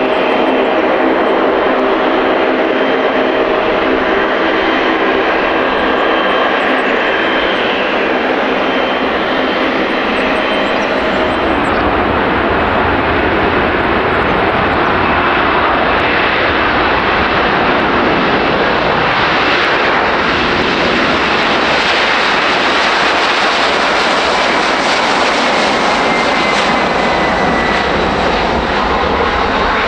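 Japan Airlines Boeing 767-300ER's twin GE CF6 turbofans on the takeoff run. For the first ten seconds or so they hum with several steady whining tones. About twelve seconds in they spool up to takeoff thrust, a rushing jet noise that grows deeper toward the end as the airliner rolls down the runway toward rotation.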